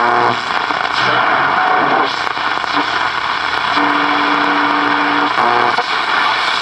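Vintage General Electric World Monitor transistor radio being tuned across the shortwave band: loud steady hiss and static between stations. Brief whistling tones come and go, one held for about a second and a half around the middle.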